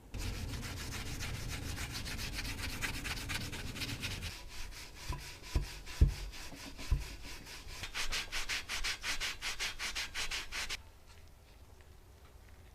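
Hand sanding or scrubbing with rapid back-and-forth strokes, with a few dull knocks midway. The strokes stop suddenly near the end.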